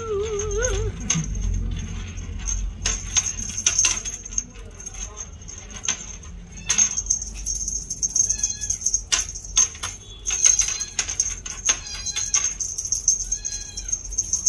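Two-month-old Scottish Fold kitten mewing: a wavering mew at the start, then short, high, falling mews about eight and thirteen seconds in, among scattered light clicks and taps.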